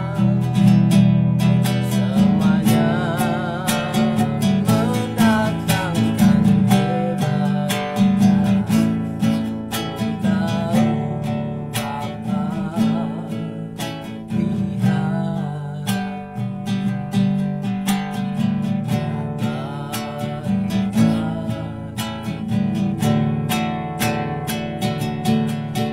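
A man singing a praise song, his voice wavering in vibrato on held notes, while he strums an acoustic guitar in a steady rhythm.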